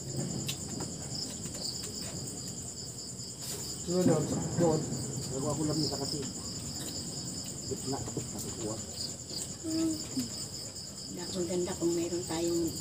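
Crickets chirping in a steady, high, rapidly pulsing trill, with a few brief low voices in the background about four seconds in and again near the end.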